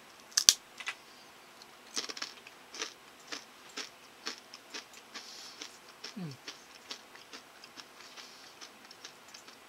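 Fried squid-leg snack (geso karaage) bitten with one sharp crack, then chewed with a steady crunching about twice a second. A short low hum comes about six seconds in.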